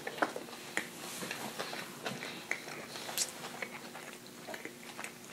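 Close-up chewing of a mouthful of spicy crispy chicken sandwich: scattered wet mouth clicks and smacks.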